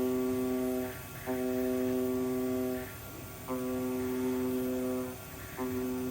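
CNC gasket cutting machine's oscillating knife humming at a steady pitch as it cuts 2 mm paper gasket, running in stretches of one to two seconds broken by three short pauses.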